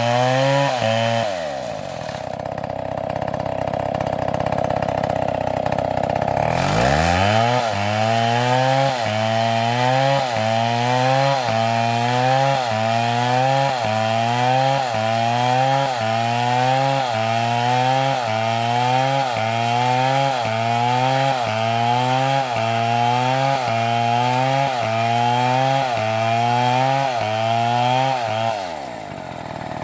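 Chainsaw engine running, its pitch climbing and dropping back about once a second in a steady cycle as the saw works. Near the start it falls away for a few seconds, then revs back up, and it winds down near the end.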